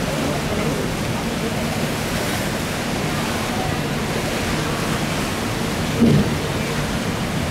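Steady rush of churning sea water around the hull and tender, with a faint low hum underneath. A brief louder sound comes about six seconds in.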